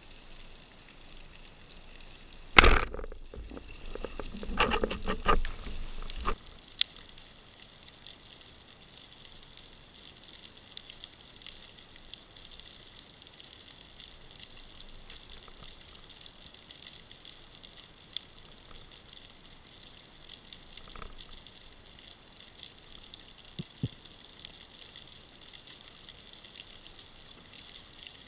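Underwater ambience picked up by a camera on a speargun: a steady, faint crackling hiss. About two and a half seconds in, a sharp knock is followed by some three seconds of loud rough rustling and knocking that stops abruptly; a few isolated ticks come later.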